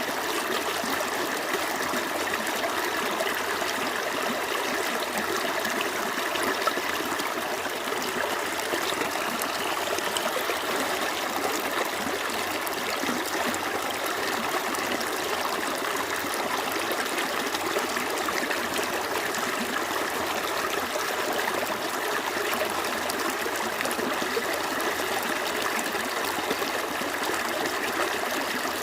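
Small stream flowing steadily, water trickling and babbling over stones.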